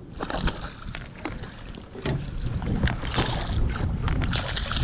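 A hooked mulloway splashing at the surface beside the boat as it is netted: irregular splashes that grow louder toward the end. Wind rumbles on the microphone underneath.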